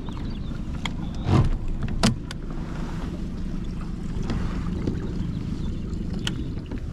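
A boat's engine runs steadily with a low rumble. A few sharp knocks sound over it, and there is a louder thump about a second and a half in.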